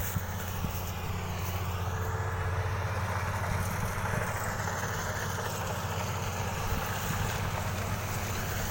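Kubota DC-35 combine harvester running steadily, a constant low engine hum with the clatter of the machine around it.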